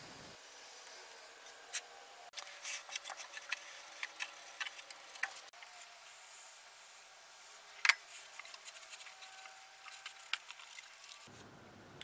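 Sand poured from a stainless steel saucepan into a sheet-metal box: a faint pouring hiss with scattered light clicks and scrapes, and one sharper click about eight seconds in.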